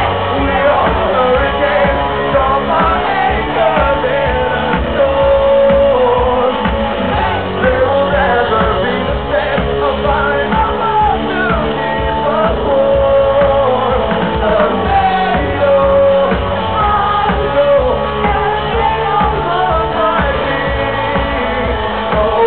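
Rock band playing live in a large hall: a male lead singer over drums and electric guitars, loud and steady, recorded from among the audience.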